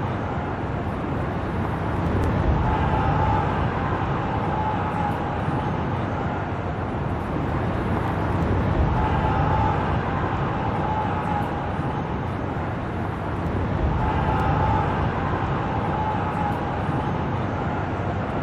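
Steady city traffic noise, swelling louder every few seconds as vehicles go by.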